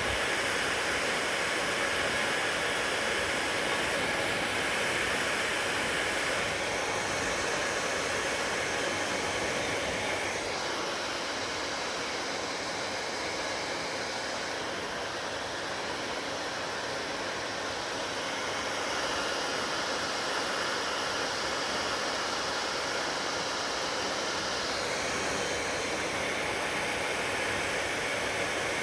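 Hair dryer blowing steadily, its tone changing a few times and a little quieter in the middle.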